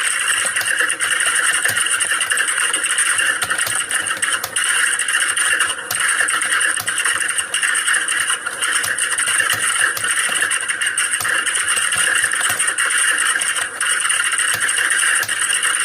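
Computer keyboards typed on fast and continuously, a dense stream of overlapping key clicks with no pauses, as in an exam hall full of typists.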